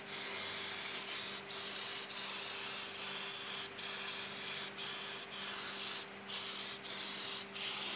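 Aerosol can of brake cleaner spraying steadily, with several brief breaks in the spray.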